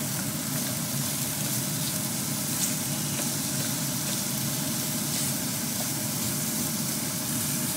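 Cubed raw chicken breast and minced garlic sizzling steadily in hot oil in a non-stick frying pan, being seared, while a wooden spatula stirs and turns the pieces.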